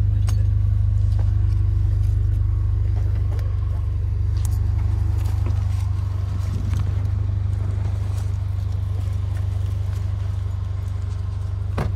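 Honda CR-V engine idling with a steady low rumble, a faint hum over it that stops about halfway through.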